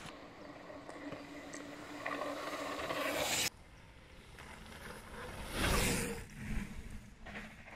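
A rushing noise with a low steady hum builds and cuts off suddenly about three and a half seconds in. Then a downhill mountain bike passes close by on a dirt trail, its tyres scrubbing through loose dirt, loudest a couple of seconds later.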